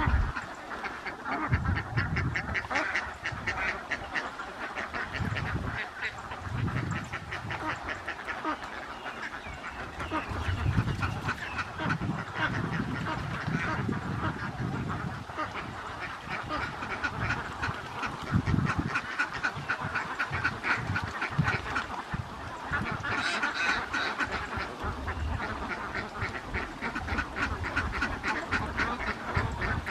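A large flock of domestic ducks quacking, many calls overlapping into a continuous chatter, with a louder, shriller stretch about three-quarters of the way through.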